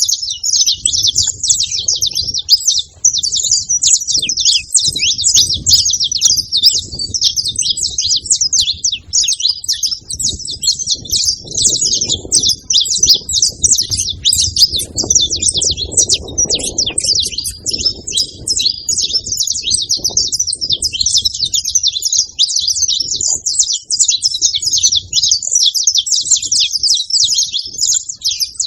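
Saffron finches chirping without pause, many short calls overlapping in a dense chatter, with a faint low rumble underneath.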